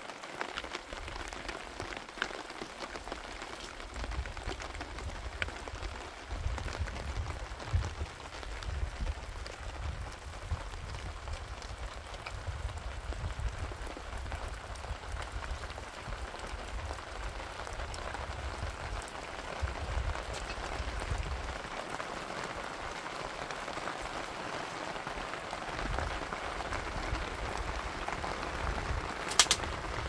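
Steady rain falling, with a low rumble that comes and goes and a sharp click near the end.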